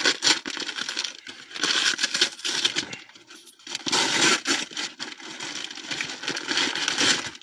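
Plastic bag crinkling and rustling as it is handled and pulled open by hand, with irregular crackles throughout and brief lulls.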